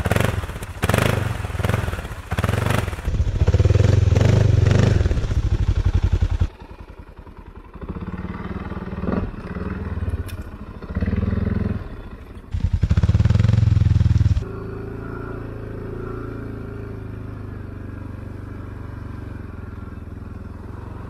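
Arctic Cat Alterra 550 ATV engine revved hard in repeated bursts in deep snow, dropping off about six seconds in. Two more hard revs follow a few seconds later, then the engine runs steadily at light throttle for the rest.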